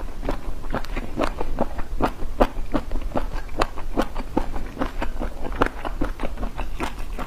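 Close-miked chewing of spicy squid: a continuous run of short, irregular clicks, several a second.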